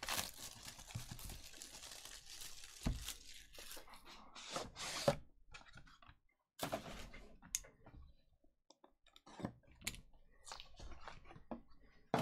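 Plastic shrink wrap crinkling and tearing as it is stripped off a Panini National Treasures cardboard hobby box, for about the first two and a half seconds. Then the lid is slid off and the box handled: a run of separate cardboard scrapes, taps and rustles.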